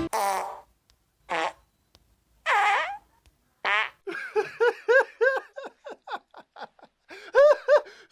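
Prank fart sound effects: four separate pitched fart noises in the first four seconds, then a quick string of short toots, about three a second.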